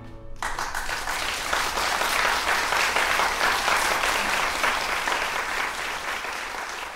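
The last notes of violin and piano ring out and die away, then audience applause starts about half a second in and goes on, tapering off near the end.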